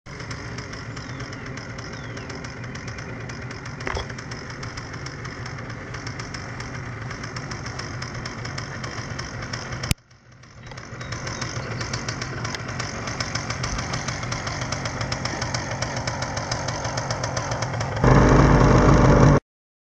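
Paramotor engine running steadily with a fine, even pulse. It breaks off briefly about halfway, comes back, grows much louder for the last second and a half, then cuts off suddenly.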